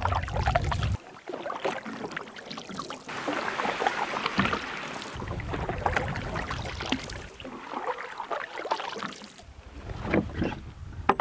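Canoe paddling on calm water: irregular paddle strokes splashing and dripping, with low wind rumble on the microphone at times.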